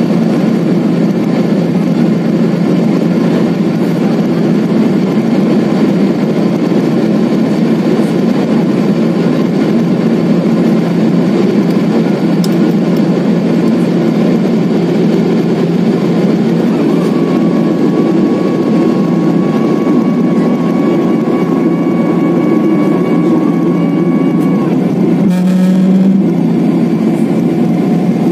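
Steady drone of a Boeing 777-300ER's GE90-115B turbofan engines in flight, heard inside the cabin beside the wing. A faint, higher steady whine joins for several seconds in the second half.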